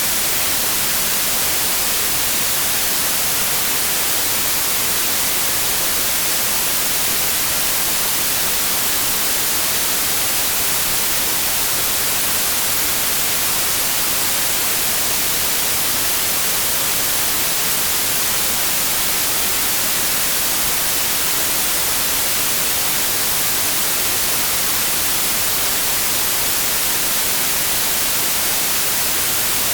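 Steady generated white noise: an even, unbroken hiss, strongest in the high frequencies.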